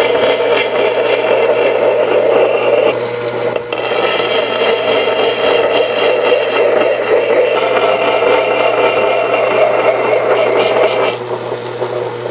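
Belt-driven electric wet grinder running with a steady motor hum, while the steel bit of a Plumb Permabond axe is held against the wheel and ground thin and flat, giving a continuous grinding scrape. The grinding breaks off briefly about four seconds in and eases near the end.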